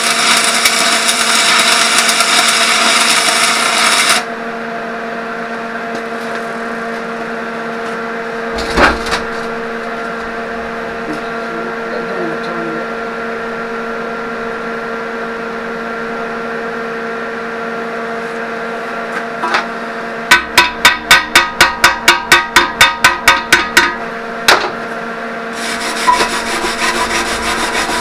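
Metal repair work: a loud rasping, hissing noise cuts off abruptly about four seconds in, leaving a steady hum. Later comes a quick run of about fifteen sharp metal strikes, roughly four a second, and the rasping starts again near the end.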